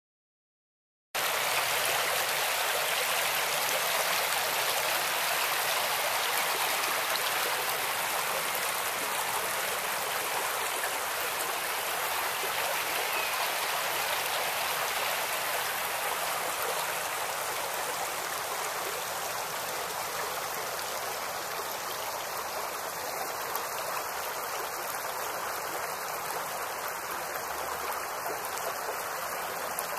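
Creek water running and babbling in a steady, even rush that starts suddenly about a second in.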